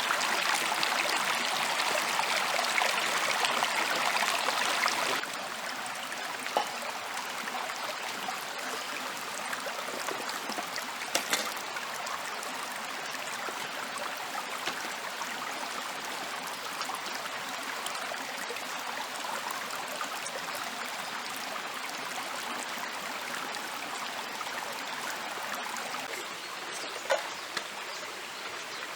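Steady rush of flowing stream water, louder for the first five seconds and then suddenly quieter, with a few small knocks.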